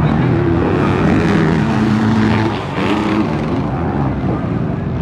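Motocross dirt bike engines racing on the track, several at once, their pitch rising and falling as the riders work the throttle through the corners.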